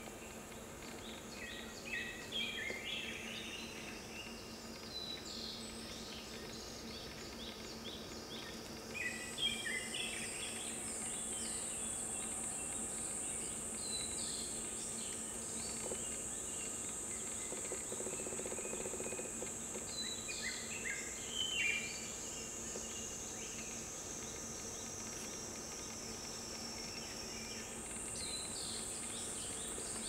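A steady, high-pitched drone of insects runs throughout and steps higher twice. Over it a songbird sings short phrases of quick notes, five or so times.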